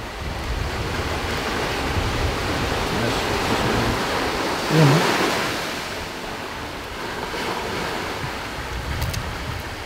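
Steady rushing noise of ocean surf and wind on the microphone, swelling for a few seconds around the middle. A short vocal sound about halfway through.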